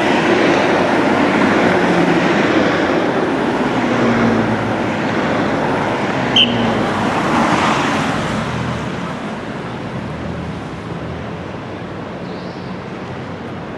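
Cars of a police-escorted motorcade driving past, a steady wash of engine and tyre noise that eases off after about nine seconds. A brief high-pitched chirp about six and a half seconds in.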